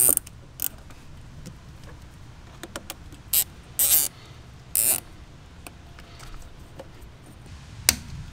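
A plastic zip tie being pulled tight around a metal brace, in several short ratcheting zips. Near the end comes a single sharp snap as the tail is cut off with side cutters.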